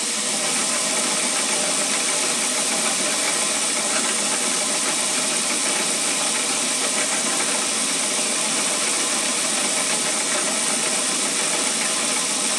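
Milling machine spindle running steadily while a small drill bit is fed by hand into a metal part, drilling a hole for a 6-32 adjustment screw.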